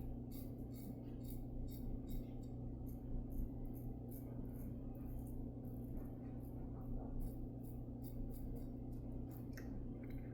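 Antica Barberia Titan safety razor scraping through stubble on a lathered face, many short strokes in quick succession, over a steady low hum.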